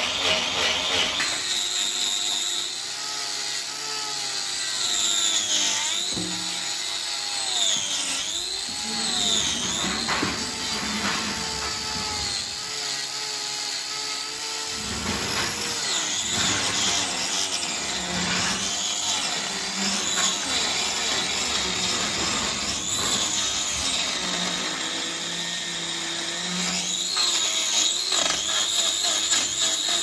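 Electric angle grinder with a hoof-trimming disc running and cutting into a cow's hoof horn. Its whine dips and climbs back in pitch over and over as the disc is pressed in and eased off.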